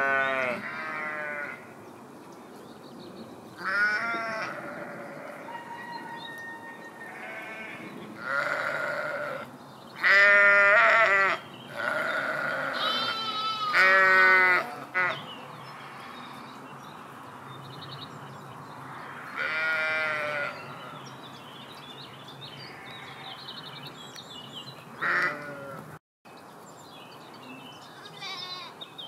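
Sheep bleating, about ten separate calls of different pitches from several animals in the flock, some overlapping, the loudest two a little past the middle.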